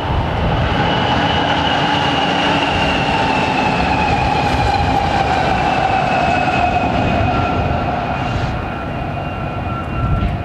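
A set of Union Pacific diesel locomotives running light, led by an EMD SD70AH, passing close by. Their engines run and their wheels rumble on the rail, and the engine whine slides down in pitch as they draw away.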